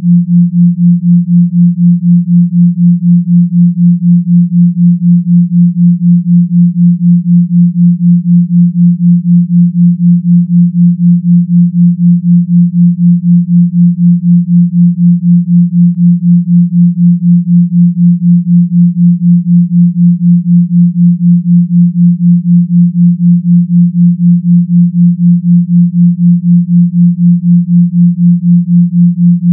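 Binaural-beat tone: pure sine tones at 172 Hz and 176 Hz, around the 174 Hz solfeggio pitch. They sound as one steady low hum that pulses evenly about four times a second, the 4 Hz theta beat.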